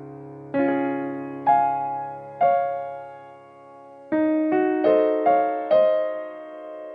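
Slow background piano music. Three notes are struck about a second apart, then after a pause five quicker ones, each ringing and fading away.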